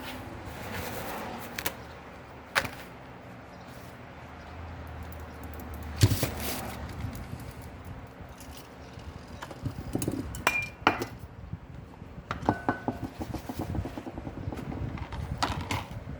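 Metal tools and small metal parts clinking and knocking during hands-on work, with a sharp knock about six seconds in and a quick run of light ticks a little past the middle.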